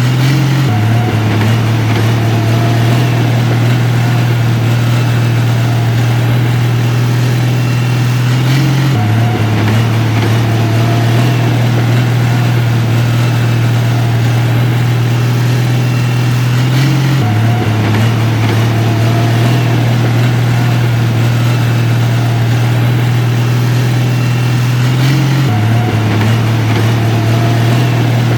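Heavy construction-machine diesel engine running steadily with a deep, even hum. The tone shifts slightly about every eight seconds in a repeating pattern.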